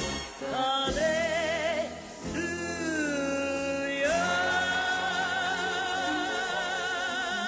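Song with a solo singer holding long notes with a wide vibrato over accompaniment; the voice glides down about three seconds in, then holds one long steady high note to the end.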